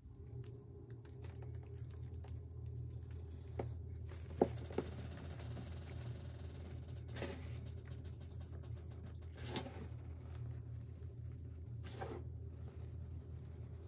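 Reformed gym chalk crushed and crumbled by hand: soft gritty crunching and powder pattering down, with a few louder crunches about four, seven, nine and a half and twelve seconds in. A steady low hum runs underneath.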